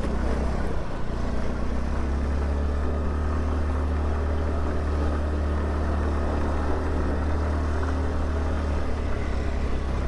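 Motorcycle engine running at a steady speed while riding, with a heavy steady low rumble.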